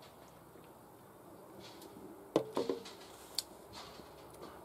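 A few gulps of beer drunk from a can, about two seconds in. About three and a half seconds in, the aluminium can is set down on a glass tabletop with one sharp clink.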